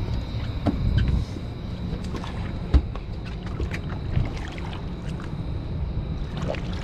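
Scattered knocks and bumps on a boat as a flathead catfish is handled for release, with one sharp thump a little under three seconds in, over a steady low rumble.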